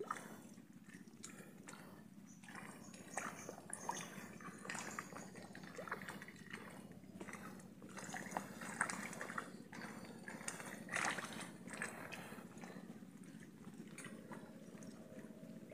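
Faint water sloshing and lapping with small irregular splashes, as a wading angler stands chest-deep in a reservoir.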